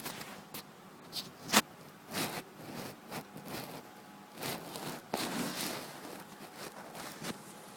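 Irregular rustling and scraping with scattered sharp clicks and taps, the loudest a sharp click about one and a half seconds in.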